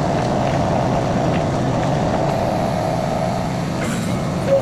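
Mini skid steer's engine running at a steady speed, with a brief higher note just before the end.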